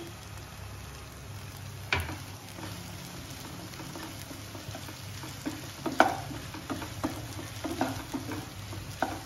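A wooden spatula stirring sabudana khichdi in a nonstick pan, over a faint steady frying sizzle. It knocks sharply against the pan about 2 s in and again, loudest, about 6 s in, with a quick run of lighter scrapes and taps around it and a last knock near the end.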